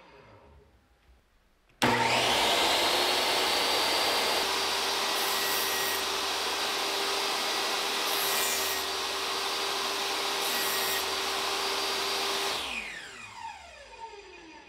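DeWalt DWE7491RS 10-inch table saw's universal motor switched on about two seconds in, whining up to speed and running steadily. Three brief spells of added hiss come as half-inch plywood is cut on the blade. It is switched off near the end and winds down with a falling whine.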